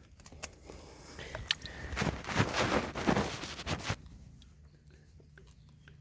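Hands working a dead sump pump in its pit: a run of clicks, knocks and scraping handling noise, then it goes quiet with only a few faint clicks. There is no motor sound, because the pump does not start.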